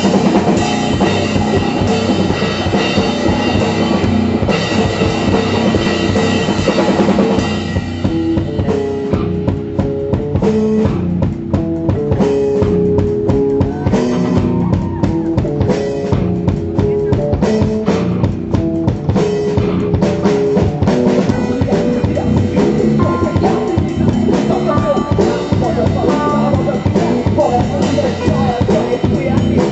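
Live rock band playing an instrumental passage: drum kit with cymbals and electric guitar, amplified. About seven seconds in the cymbal wash drops back, leaving drum hits under a line of distinct guitar notes.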